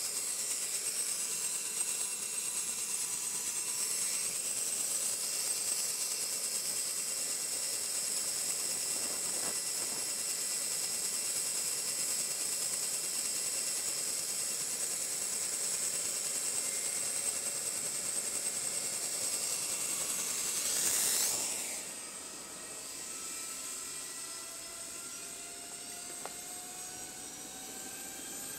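Sikorsky HH-60G Pave Hawk's turboshaft engines whining during start-up with the main rotor turning. About 21 s in the sound swells briefly and then drops to a quieter level, after which the whine rises steadily in pitch as the engines spool up.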